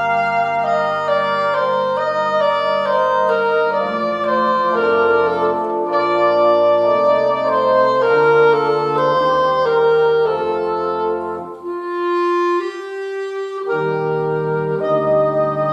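Clarinet playing a slow melody of held notes, one note sustained alone for a moment near the end before lower notes come back in.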